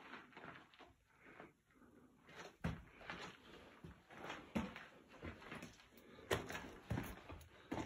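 Footsteps crunching and scuffing over loose rock rubble in a mine tunnel. The steps are irregular and sparse at first, then come about one or two a second from a couple of seconds in.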